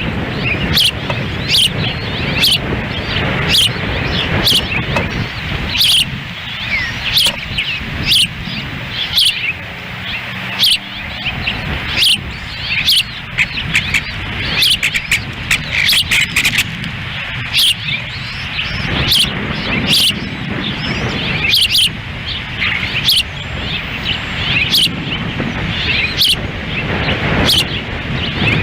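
Ospreys chirping in short, sharp high calls, about two a second, over a steady low rumble of wind on the microphone.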